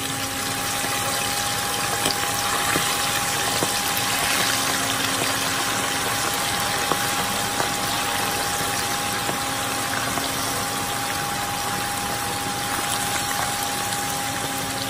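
Chicken pieces deep-frying in hot oil in a wok: a dense, steady sizzle with scattered crackles and pops, swelling in the first second as the pieces go in. A steady hum runs underneath.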